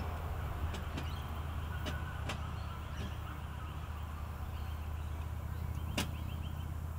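A steady low mechanical hum, with a few sharp clicks over it.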